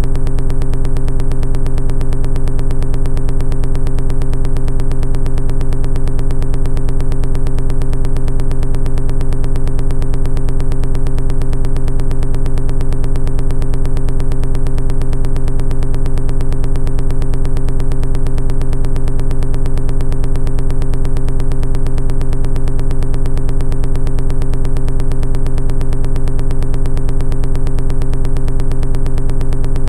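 Background music: a steady synthesizer drone with a fast, even pulse, unchanging throughout.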